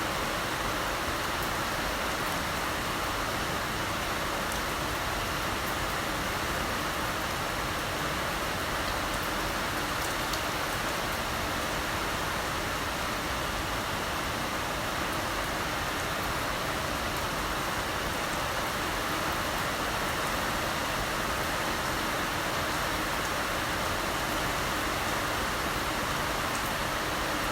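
Heavy rain falling steadily, an even, unbroken wash of noise.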